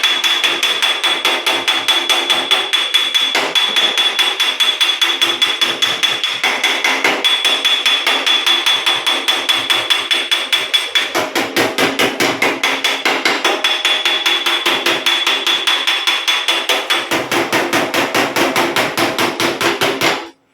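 Body hammer striking a dented steel car panel against a dolly held behind it, a rapid, even run of metallic blows with a high ringing tone, raising the metal out of the dent. The hammering stops suddenly near the end.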